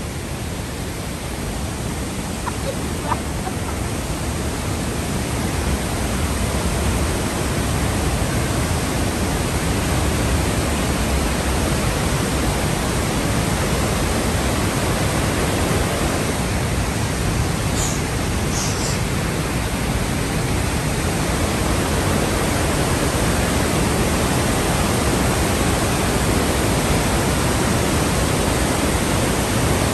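Whitewater creek in high flow rushing and cascading over boulders, a steady roar that grows louder over the first few seconds as the water gets closer.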